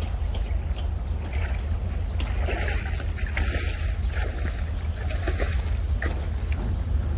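Wind buffeting the microphone as a steady low rumble, with light, irregular splashing and lapping of lake water, busiest from about one to six seconds in.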